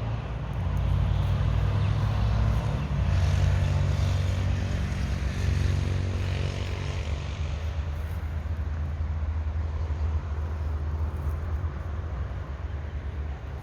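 Motor vehicle engine running steadily at a low pitch, with a swell of engine and road noise between about three and seven seconds in, as if a vehicle passes close by.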